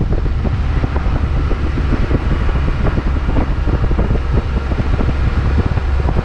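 A car driving on a snow-covered road: a steady low rumble of road and engine noise, with wind buffeting the microphone throughout.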